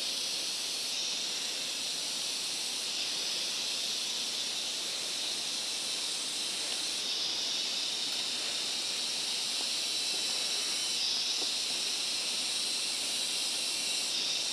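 Steady, high-pitched hiss of an insect chorus droning without a break, its upper part fading in and out every few seconds.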